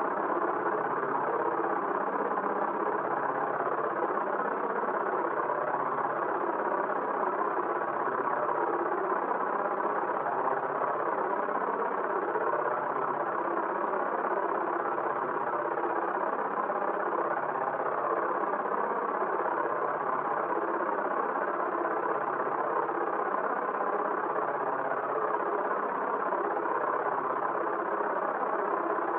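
A steady, dense droning noise, even in level throughout, with a faint slow pulsing in its low end.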